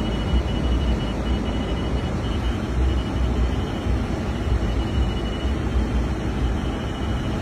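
Steady low rumble of a vehicle heard from inside its cabin, with a faint thin high-pitched tone running under it.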